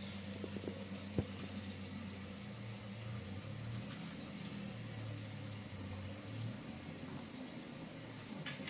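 A motor hums steadily under a background hiss, its pitch shifting slightly about two and a half seconds in; a single sharp click about a second in.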